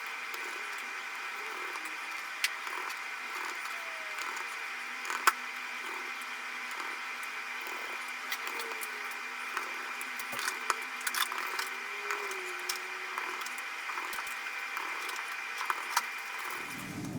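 Scattered light clicks and taps of small repair tools and parts being handled while working on a Google Nexus 6 phone, over a steady hiss.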